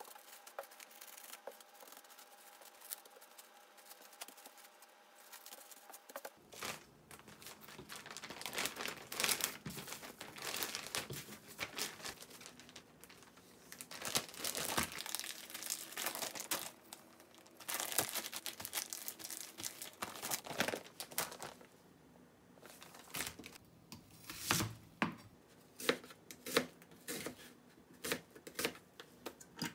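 Plastic cling wrap and a zip-top freezer bag crinkling and rustling as a portion of ground meat is wrapped and bagged; the rustling starts about six seconds in after a faint start. Near the end come sharp separate taps of a knife cutting an onion on a plastic cutting board.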